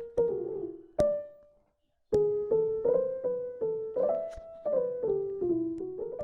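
GarageBand's Parallel Earth Piano keyboard patch played one note at a time on the on-screen keyboard, mostly in quick downward runs. The notes stop briefly about a second and a half in, then start again.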